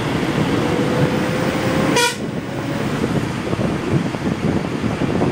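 Steady wind and road rumble from a moving vehicle, with one short horn beep about two seconds in.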